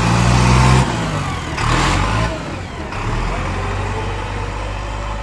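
JCB 3DX Eco Xpert backhoe loader's diesel engine running; the revs drop about a second in, then it runs steadily. There is a brief hiss about two seconds in.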